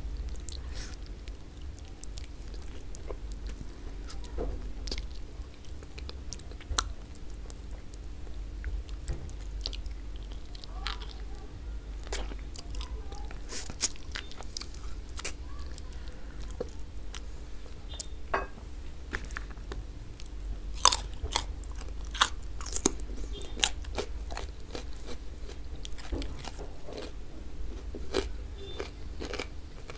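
Close-miked mouth eating sounds: steady chewing with many sharp, crunchy bites, the loudest cluster coming about two-thirds of the way through.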